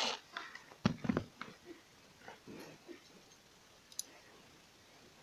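A quick cluster of knocks and clicks, the loudest just under a second in, then quiet with one small click about four seconds in.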